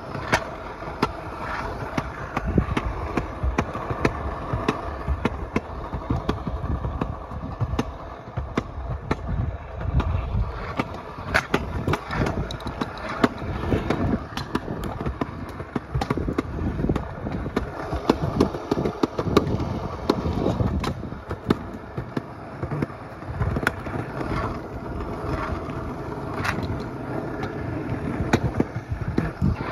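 Small hard wheels of a kick scooter rolling over a concrete sidewalk: a steady rumble broken by frequent, irregular sharp clacks as the wheels cross the joints between slabs.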